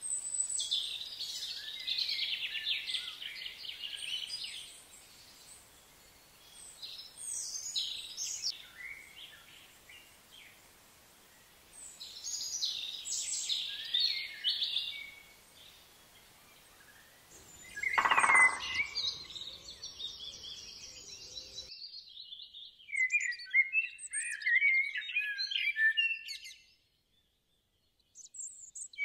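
Birds chirping and singing in several bursts of high notes over a faint hiss, with one louder, lower call about midway. Later the hiss drops away and a bird twitters in quick, high notes.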